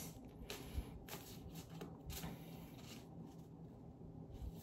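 Faint, soft clicks and rustles of a tarot deck being shuffled and handled in the hands.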